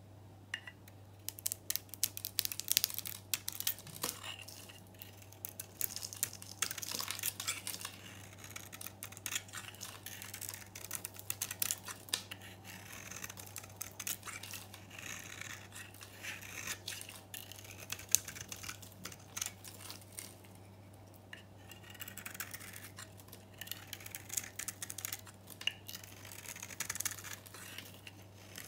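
A knife shaving and scraping a dry, hard bar of Dalan soap coated in green paint and varnish: crisp crackling and crunching as flakes and curls of coating chip off, in quick repeated strokes with a brief pause about two-thirds of the way through.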